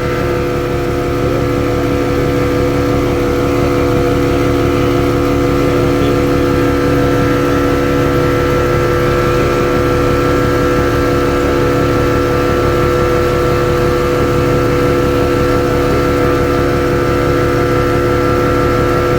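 Motorboat engine running steadily under way, an even rapid beat with a steady drone above it, picking up a little a few seconds in.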